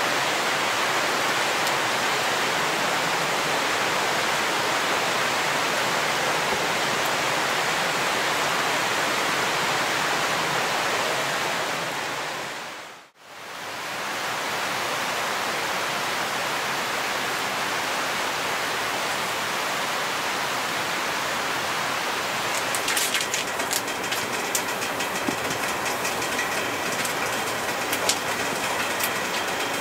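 Steady rain falling, an even rushing hiss that fades out a little before halfway and comes back. In the last quarter, irregular crackling and clicking sits over the rain.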